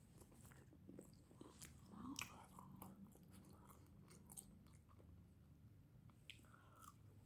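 Faint, irregular chewing and biting on a chicken burger, with small scattered clicks of the mouth.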